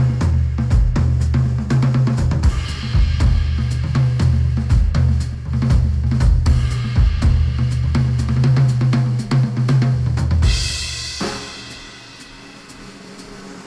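Instrumental track with a drum kit playing a steady beat over heavy bass, played back through Sennheiser headphones and picked up by microphones at the earcup. About ten seconds in, the drums and bass drop out, leaving a quieter cymbal wash.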